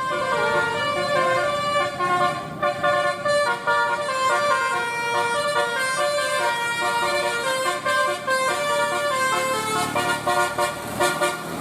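Bus 'telolet' horn, a set of tuned air horns, playing a melody of short stepped notes that stops near the end.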